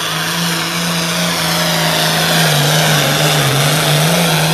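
International Harvester farm tractor's diesel engine at full throttle under heavy load, dragging a weight-transfer pulling sled. The engine note is loud and steady; it sags a little about three seconds in, then climbs again.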